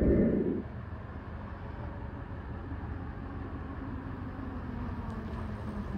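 Low steady rumble of an electric bike riding up, with a faint motor hum that rises slightly in pitch over a few seconds. A louder low rumble dies away in the first half second.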